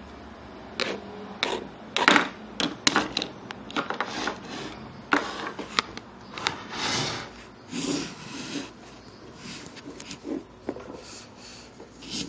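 Small plastic toys and a plastic basket being handled and set down on a wooden tabletop: an irregular run of clicks and knocks with a few short rustles.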